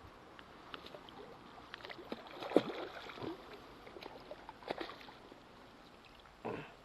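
Irregular splashing and sloshing of water with scattered knocks and clicks. The sharpest splash comes about two and a half seconds in, another near five seconds, and a short burst near the end.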